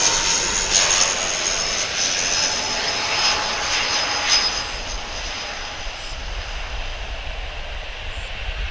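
Twin turboprop engines and propellers of an ATR 72-600 on landing approach: a steady high-pitched whine over a rushing noise that fades about halfway through, leaving a low rumble.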